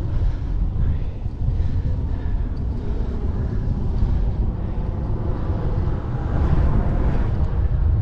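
Wind rumbling on the microphone with tyre and road noise from a moving bicycle towing a cargo trailer, steady throughout.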